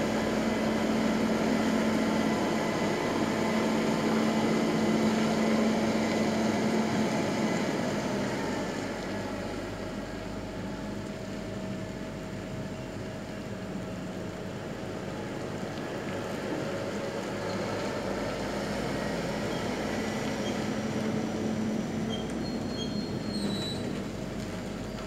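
Heavy diesel truck engine running steadily with a low hum, louder for the first several seconds and then easing, as a truck manoeuvres and reverses in a container yard.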